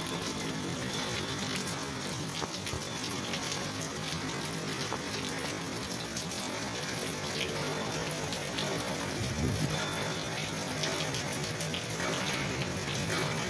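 Steady rain falling: a dense, even hiss with many small drop ticks. A brief low rumble swells about nine and a half seconds in.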